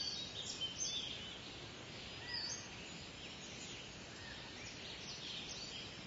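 Small birds chirping: many short calls scattered through, over a steady background hiss.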